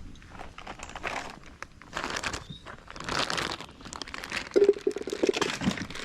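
Packaging being crumpled and handled: irregular crinkling and rustling in repeated bursts, with a brief squeak near the end.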